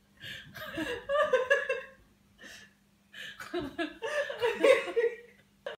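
A person laughing in bouts, stopping about two seconds in and starting again about a second later.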